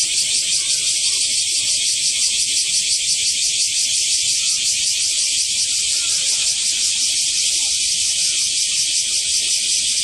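Dense chorus of many cicadas singing together, a steady, shrill, rapidly pulsing drone.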